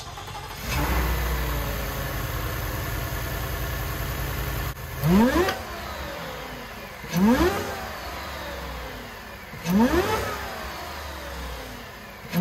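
Whipple-supercharged Ford 5.0 V8 in a 2021 F-150 running at a steady idle, then revved four times in quick throttle blips about two and a half seconds apart, the pitch rising sharply with each blip and falling back to idle.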